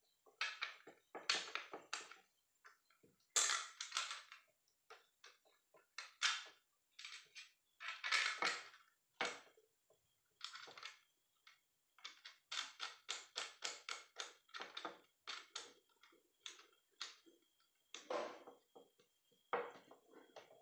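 Steel saw blade and a small screw being worked into a plastic handsaw handle by hand: irregular short scrapes and clicks of metal on plastic, with a quicker run of strokes at about four a second about twelve seconds in.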